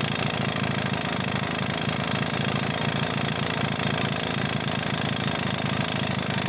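Sachs 98 single-cylinder two-stroke engine of a Wanderer 11AS running steadily at idle with a fast, even beat and a rattle ('klappert').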